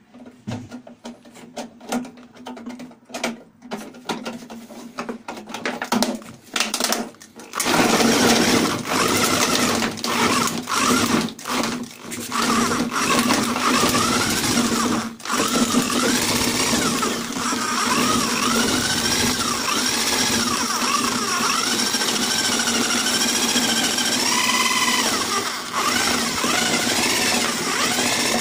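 Electric drill spinning a homemade apple crusher, a threaded rod fitted with sharpened steel angle brackets, inside a cut-down plastic water bottle full of apples, chopping them to pulp. For the first several seconds it runs in short stop-start bursts, then runs continuously from about eight seconds in, its pitch rising and falling with the drill's speed, with a brief break about halfway.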